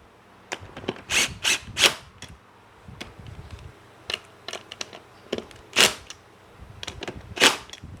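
A run of sharp snaps and clicks as car seat parts are clicked into place: three loud snaps close together about a second in, a few small ticks in the middle, then two more loud snaps, one about six seconds in and one near the end.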